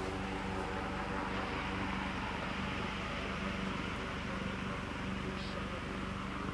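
Rescue helicopter hovering: a steady drone of engines and rotor, with a fast low beat under an even hum.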